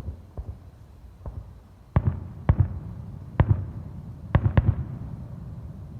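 Fireworks going off: a string of sharp bangs, a few soft ones in the first second or so, then louder ones about two seconds in and a close pair past the middle. Each bang is followed by a low rumble.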